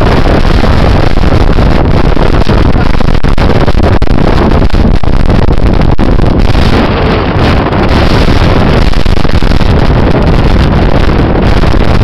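Strong typhoon wind buffeting the microphone in a loud, steady rumble, mixed with heavy surf breaking on the beach; it eases briefly about seven seconds in.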